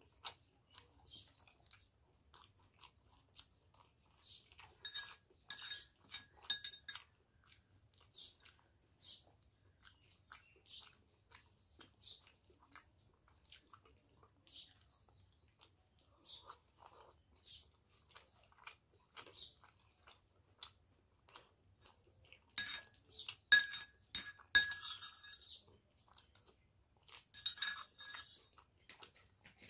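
Close-up chewing and crunching of food, a string of small wet clicks and crunches. Three times, in the middle and near the end, come quick runs of ringing clinks of tableware.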